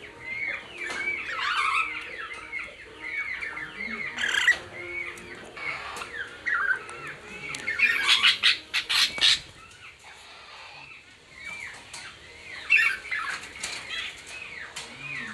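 Cockatiels and other caged birds chirping and calling over one another, with a burst of wing flapping about eight seconds in.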